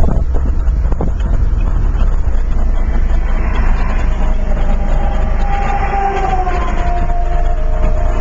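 Turbocharged 2.0-litre four-cylinder engine of a 2008 Pontiac Solstice GXP under hard acceleration, a loud steady low drone mixed with road and wind noise. A faint whine wavers above it.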